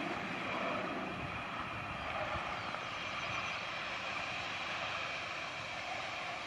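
Alstom Citadis tram running on its rails at a distance, a steady hiss and rumble that eases slightly as it moves away.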